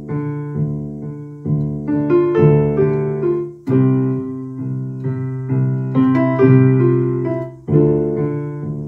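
Electronic keyboard with a piano sound playing an instrumental passage of a song: chords struck with both hands and left to ring, a new chord every second or so.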